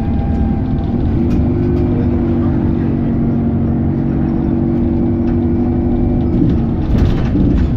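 Alexander Dennis Enviro400 double-decker bus heard on board, engine and drivetrain running over a low rumble, with a steady two-note hum that comes in about a second in and shifts near the end.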